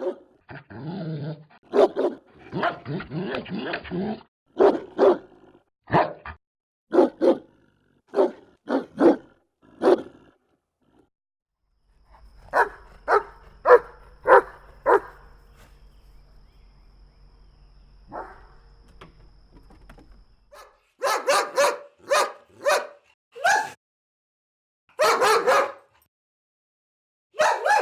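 German Shepherd dogs barking in runs of short, separate barks, often one or two a second, with pauses between the runs.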